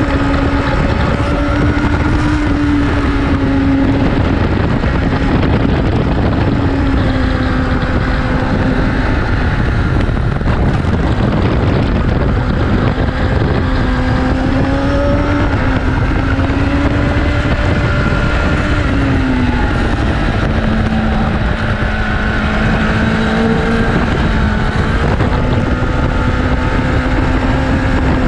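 Inline-four superbike engine running hard around a race track, its pitch rising and falling as the rider works through the gears and brakes, over heavy wind rush on the onboard microphone.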